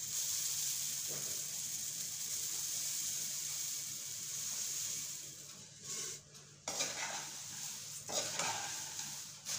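Puffed rice poured into a hot aluminium kadhai over roasted peanuts and spices, a steady dry rustling hiss. For the last few seconds a spatula stirs and scrapes the mix against the pan in uneven strokes.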